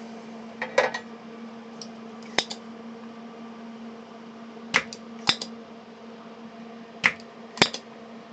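About six short, sharp clicks and taps of small parts and hand tools being handled on the workbench while a replacement capacitor is fitted to a power-supply circuit board, over a steady faint hum.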